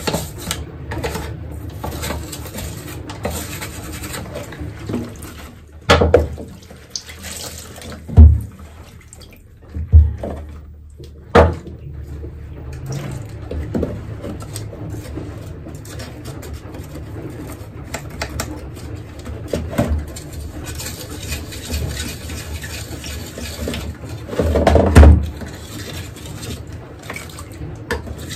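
Wet scrubbing and handling of a plastic humidifier base, a thin brush rasping in its water channels, with several sharp knocks as the parts are moved and a louder clatter near the end.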